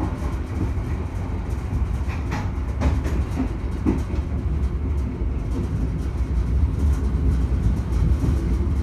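Kutojaya Utara passenger train's carriage running along the track, heard from inside the coach: a steady low rumble of the wheels on the rails, with a few short clicks about two to four seconds in.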